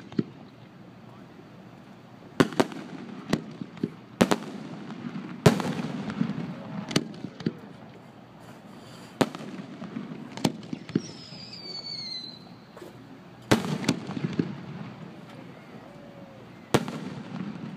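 Aerial fireworks shells bursting: about a dozen sharp bangs at uneven intervals, each echoing briefly. A short high whistle falls in pitch about eleven seconds in.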